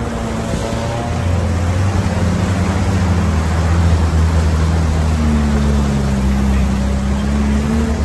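Lada Niva engine pulling at low revs through muddy water, with the revs rising about five seconds in. Tyres churn through mud and water under it.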